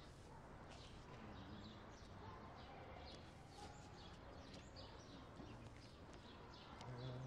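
Faint, quick bird chirps over a quiet outdoor hush. A low voice-like sound begins near the end.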